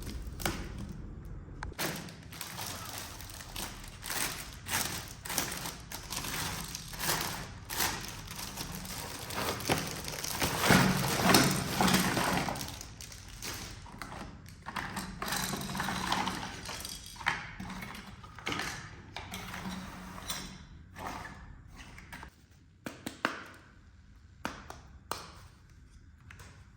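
Small plastic toy kitchen pieces being unboxed and handled: an irregular run of taps, knocks and clicks as parts are picked up and set down. There is a louder, busier stretch of handling about ten to twelve seconds in, and it grows sparser near the end.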